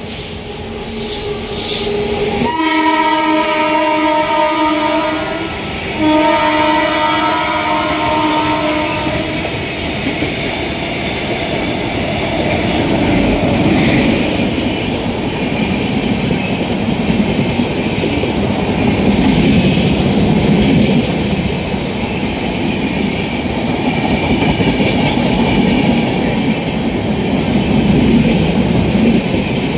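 Express train running through a station at speed: the locomotive's horn sounds two long blasts, starting about 2.5 and 6 seconds in, then the passenger coaches rush past with a steady rumble and wheel clatter.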